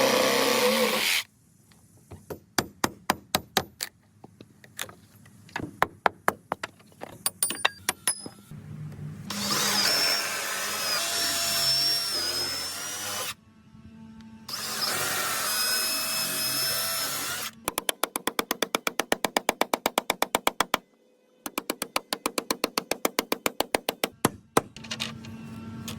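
Woodworking tool sounds: scattered sharp knocks and taps, two stretches of a power tool running with a wavering whine, and fast, even runs of clicks in the later part, with music.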